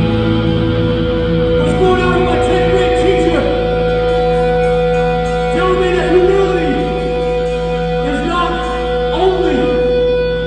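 Hardcore punk band playing live, recorded from among the audience, with singing over the band. A held note rings steadily throughout while a phrase repeats about every two seconds.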